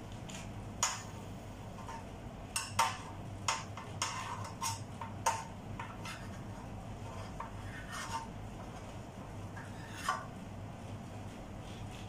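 A metal spoon clinking against a dish: irregular sharp clinks, most of them between about one and five seconds in, with a last one near ten seconds.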